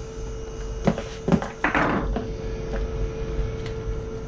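Handling noise of an umbrella fishing rig and its packaging: two sharp knocks about a second in, then a brief crinkling rustle, over a steady low hum.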